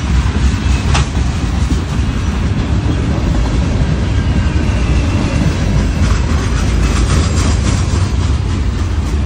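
Freight train cars rolling past close by: a steady, loud low rumble with the wheels clacking over the rail joints, one sharp clack about a second in.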